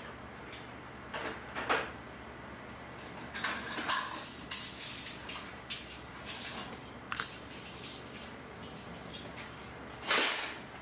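Needle and thread being drawn through felt in hand stitching: irregular soft swishes and rustles, densest in the middle and with one longer, louder swish near the end.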